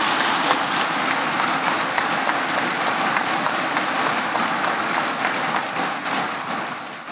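Audience applauding, a dense patter of many hands clapping that thins out and dies down near the end.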